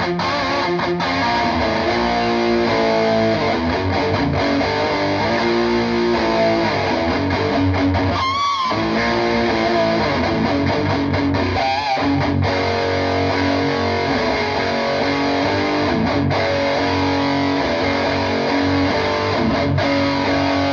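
PRS McCarty 594 electric guitar played through a PRS Archon 50 amp head and a cab with Celestion Vintage 30 speakers: riffs and chords with sustained notes and wavering vibrato bends, stopping abruptly at the very end.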